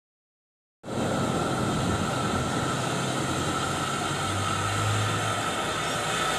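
Steam locomotive moving slowly, a steady hiss and rumble with no clear exhaust beat, starting abruptly about a second in.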